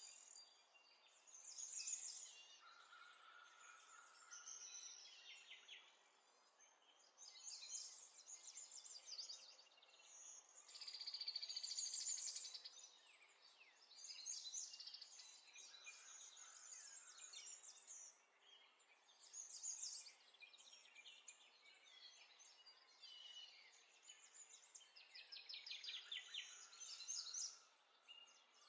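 Faint birdsong: high-pitched chirps and quick trills in short phrases, repeating every second or two.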